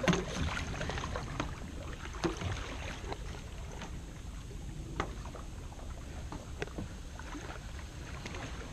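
Kayak paddle strokes in the water, paddling upstream against a strong current: scattered light splashes, drips and knocks over a steady low rumble.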